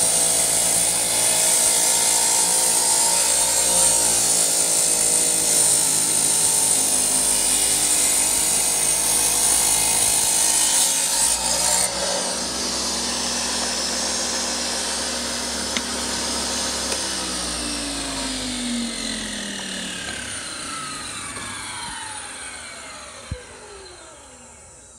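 Tile saw cutting through a stack of tiles clamped together. It is then switched off and winds down, with a falling whine over the last several seconds.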